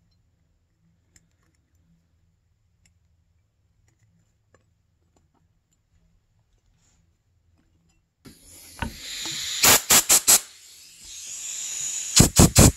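Near silence for about eight seconds, then a compressed-air blow gun starts hissing into the freshly tapped grease-fitting hole in a snowmobile spindle. It gives two quick clusters of short, sharp blasts, the second just before the end.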